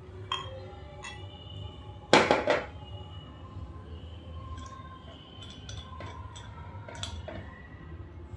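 Heavy glass whiskey bottle set down on a glass tabletop: a quick cluster of three or four ringing glass-on-glass knocks about two seconds in, the loudest sound here. Lighter single clinks of glass come before and after it.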